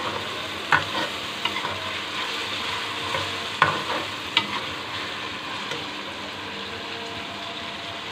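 Sliced onions sizzling steadily in hot oil in a metal kadai as they are sautéed, stirred with a steel spoon that clinks and scrapes against the pan a few times in the first half.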